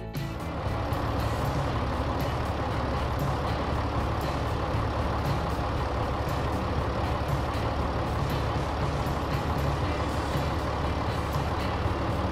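Tractor engine sound effect running steadily.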